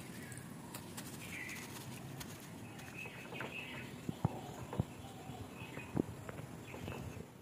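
Birds chirping in short, scattered calls over a steady background hiss, with a few sharp light clicks in the second half.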